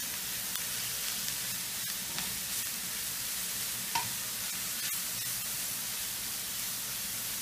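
Grated beetroot, carrot and onion sizzling steadily in oil in a frying pan while being stirred with a wooden spatula, with a few light clicks of the spatula against the pan.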